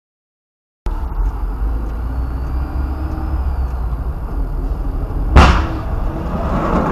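Sound cuts in after a second of silence: the steady low rumble of engine and tyres heard from inside a moving car. Late on comes a single sudden loud bang as an oncoming truck passes close alongside.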